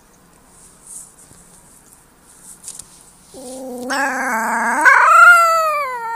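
Wolf pup howling. After a few quiet seconds, one long howl starts low and wavering, rises sharply partway through, then slides slowly down in pitch.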